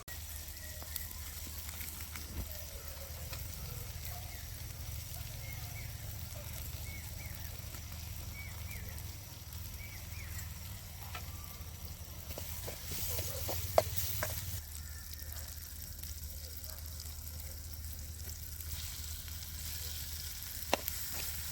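Steady sizzling hiss, with a sharp click about 14 s in and another near the end.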